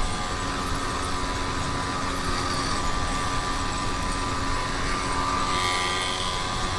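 YD100 two-stroke bicycle engine running at a steady pace.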